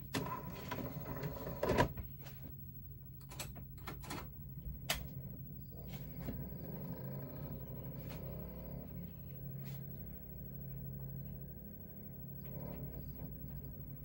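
Several sharp clicks and knocks in the first five seconds or so, from a DVD being put in and started, followed by a steady low electrical hum.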